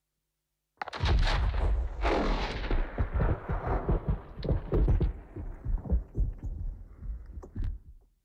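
A sound-effect sample played back from a sampler. It starts abruptly about a second in with a heavy low rumble and a dense run of sharp cracks and knocks, then thins out and fades away just before the end.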